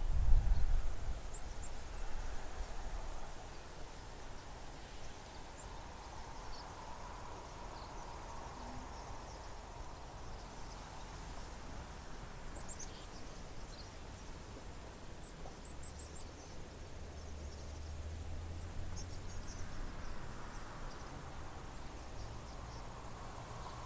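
Scattered faint, high, short chirps from a large flock of swallows over a steady hiss. A low rumble sounds in the first couple of seconds.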